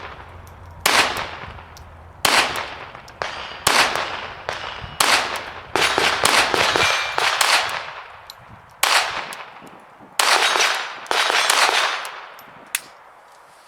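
Glock 44 .22 LR pistol firing a string of single shots, roughly one a second with a few closer together, each sharp crack trailing off in a short echo. The shots stop about eleven seconds in, followed by a couple of faint clicks.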